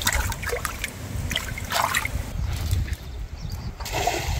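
Water splashing and trickling in a few short bursts as a small sábalo is put back into the river, over a steady low rumble.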